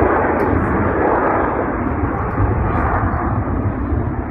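Airplane flying past overhead: a steady rushing engine noise that eases off slightly.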